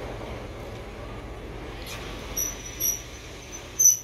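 Passenger train coaches rolling slowly along the platform with a steady low rumble, then three short high-pitched squeals from the wheels and brakes in the last two seconds, the last the loudest, as the train draws to a stop.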